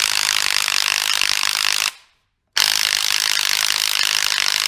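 Ratchet wrench clicking rapidly in two long runs with a short break, turning a 17 mm hex bit on a gearbox drain plug.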